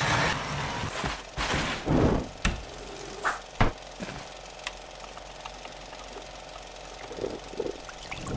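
Coffee-making sounds: a hand-cranked coffee grinder grinding in short grainy spells, then a few sharp clinks and taps, likely the glass carafe being handled.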